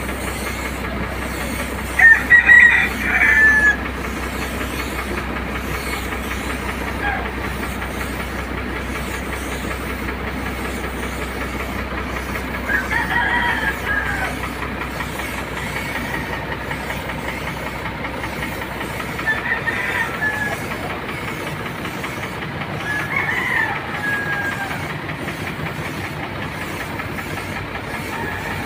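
Roosters crowing four times, the loudest crow about two seconds in, over a steady hiss of compressed air from an air spray gun painting a truck.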